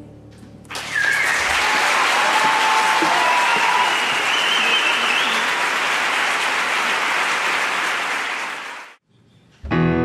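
Audience applauding a choir, starting about a second in as the last sung note dies away, and cutting off suddenly near the end. A piano starts playing right at the end.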